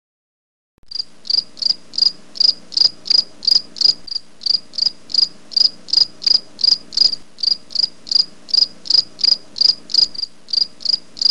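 Cricket chirping in a steady, even rhythm of about three chirps a second over a faint low hum. It starts abruptly about a second in and stops suddenly at the end.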